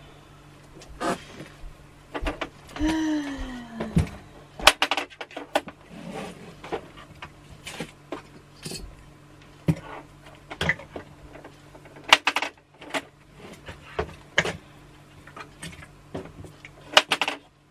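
Scattered clicks, taps and rustles of objects being handled, over a faint steady low hum. About three seconds in there is a short falling hum from a voice.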